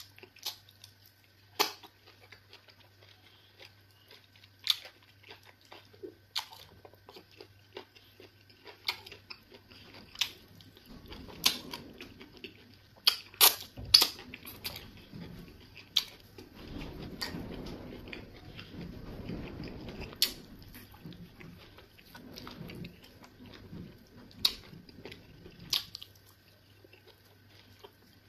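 Close-miked eating of eba with egusi soup by hand: irregular sharp wet smacks and clicks, with a stretch of soft chewing in the middle. A faint steady hum runs underneath.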